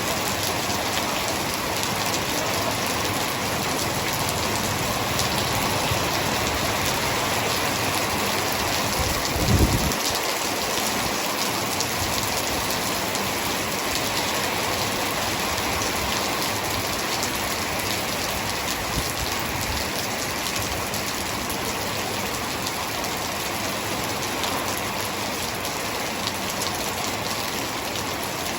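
Hard rain falling steadily: a dense, even hiss with fine patter of drops striking a surface. There is one brief low thump about a third of the way in.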